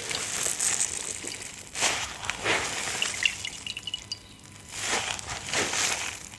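A wet sponge being squeezed out by hand, water trickling and dripping back into the water in a few separate squeezes.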